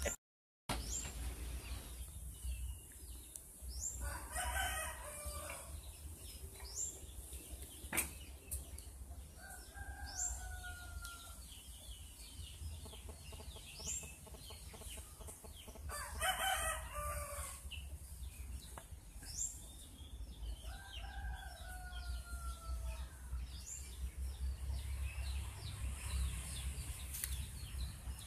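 A rooster crowing twice, about four seconds in and again about sixteen seconds in, with small birds chirping and a steady low hum underneath.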